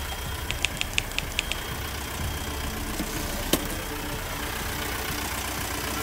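A run of typewriter key clicks over the first second and a half, over the steady low rumble of a sailboat's Volvo diesel engine running under way. A single sharp click comes about halfway through.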